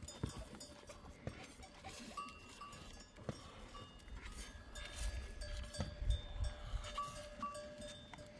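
Bells on goats in a crowded pen ringing and clinking irregularly at several pitches, with scattered knocks among the flock. A low rumble comes in about five seconds in.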